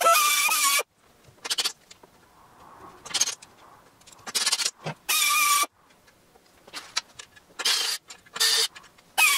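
Power tools drilling a hole into the steel backbone tube of a motorcycle frame for a gas tank mounting bung: an air tool and then a cordless drill, run in about nine short bursts of under a second each, several with a steady whine. The loudest burst comes right at the start.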